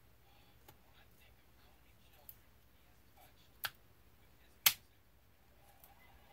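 Hard clicks of an RC truck differential being fitted by hand into its plastic bulkhead case: a few light ticks, then two sharp clicks about a second apart, the second the loudest.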